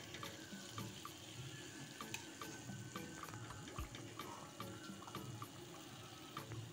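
Oil sizzling faintly and steadily around methi mathri deep-frying in a kadhai, with many small scattered crackles; the mathri are browned, at the end of frying.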